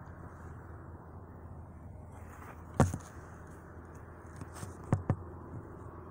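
Low steady hum inside a car cabin, with one sharp knock about three seconds in and a quick double click about five seconds in.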